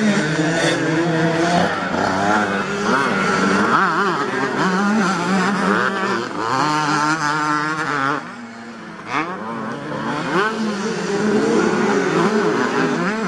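Several motocross bikes racing past one after another, their engines revving up and down and overlapping, with a brief lull about eight seconds in.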